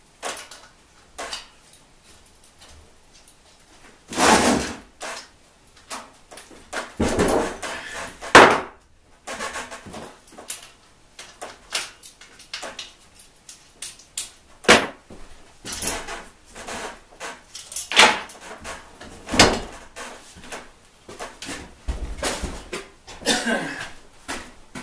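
Irregular metal clanks, knocks and scrapes of an adjustable wrench and loose parts being worked while a trike's rear wheel is taken off, with the loudest clunks a few seconds in.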